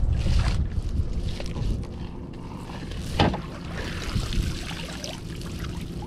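Wind buffeting the microphone while a cast net loaded with pilchards is hauled up out of the water and lifted onto a kayak, water splashing off the mesh. A brief sharp sound comes about three seconds in.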